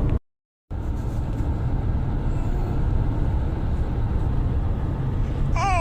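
Steady low road and engine rumble inside a moving car's cabin, broken by a half-second dropout just after the start. Near the end a baby starts crying.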